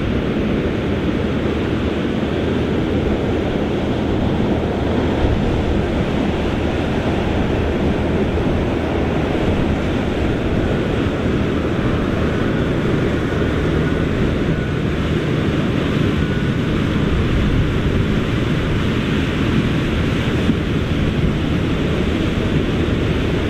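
Large Fendt tractor's engine running hard under heavy load as it spins its tyres in deep mud, with the wheels churning and splashing wet mud and water. The noise is a steady drone under a loud rushing.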